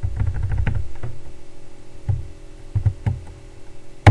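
Computer keyboard keystrokes: a quick run of key presses in the first second, then single presses about a second apart, the loudest right at the end.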